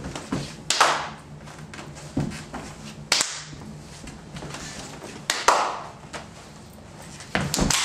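Sharp hand slaps and claps of two people working through a secret handshake: single slaps spaced a couple of seconds apart, then a quick run of slaps near the end.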